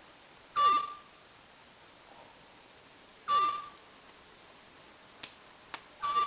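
Roosting peacock making a short snore-like call three times, about every two and a half seconds, each call ending on a held note.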